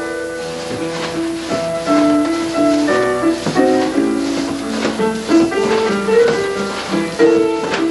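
Background music: a melody of held notes that step up and down in pitch.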